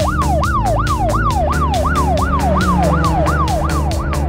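Emergency-vehicle siren sound effect, a fast siren sweeping up and down about three times a second and fading out near the end, over background music.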